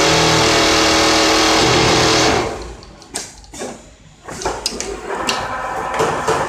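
Richpeace automatic template sewing machine stitching at high speed, a loud steady whir with steady tones that winds down and stops about two and a half seconds in. After it stops come scattered sharp mechanical clicks and knocks.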